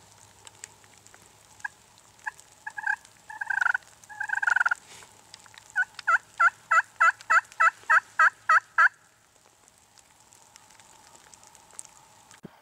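Turkey yelping: a few scattered calls, then a quick, even run of about a dozen yelps, roughly four a second.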